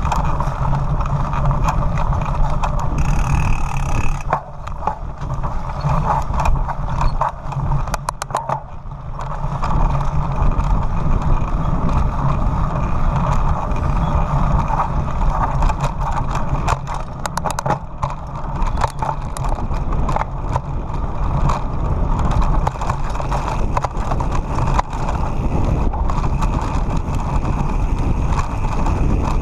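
Mountain bike riding fast down a rough, stony dirt track: tyres rolling over gravel and the bike and camera mount rattling and jolting over the bumps, with wind rushing over the microphone. It eases for a few seconds early on, then goes back to steady clatter.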